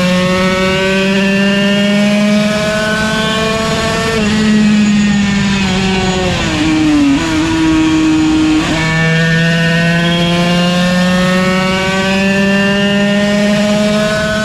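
Yamaha TZ125 single-cylinder two-stroke race engine under hard throttle, its pitch climbing with a drop at an upshift about four seconds in. The pitch then falls steeply as the throttle closes for a corner, holds low briefly, and climbs again as the bike accelerates out.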